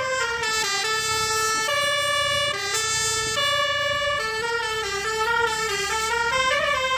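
Basuri-type musical vehicle horn playing a tune: loud held notes that switch from pitch to pitch, with a wailing rise and fall near the start and again near the end.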